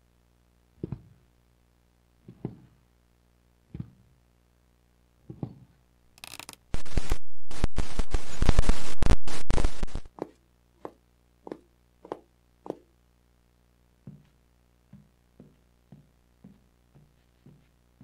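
Footstep sound effects: slow single steps about every one and a half seconds, then a loud harsh noise for about three and a half seconds, then quicker running steps that grow fainter.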